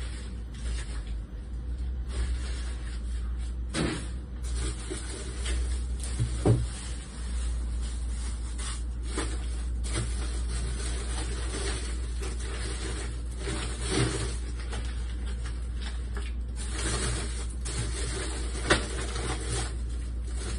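Rummaging through the lower drawers of a refrigerator: irregular knocks, clatters and rustling of containers and bags, over a steady low hum.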